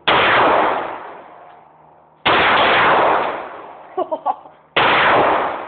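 Three loud 9mm pistol shots, spaced about two and a half seconds apart, each ringing out in a long echo that dies away before the next.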